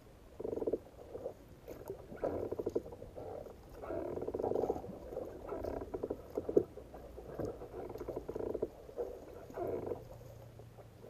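Water slapping and gurgling against a kayak's hull in irregular bursts about once a second, with a sharp knock about six and a half seconds in.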